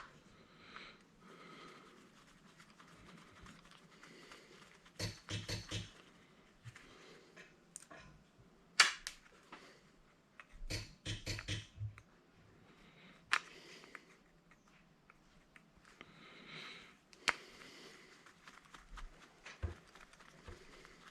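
Scattered clicks and knocks of hand tools and metal parts being handled while an electric angle grinder is taken apart, with a few quick clusters and a single sharp loudest click about nine seconds in.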